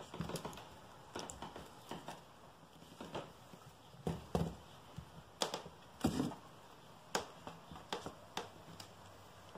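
Irregular light taps, knocks and scrapes as a kitten pounces on and bats a toy against wicker baskets and a wooden floor, with a few heavier thumps about four to six seconds in.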